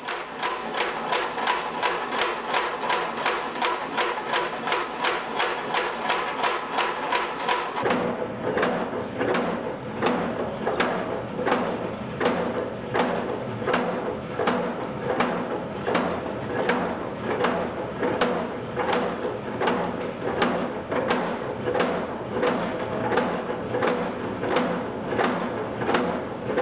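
Homemade leaf-spring power hammer of the Anvil Fire X-1 type, belt-driven by a small electric motor, running and striking its dies in a steady, rapid rhythm of about three blows a second.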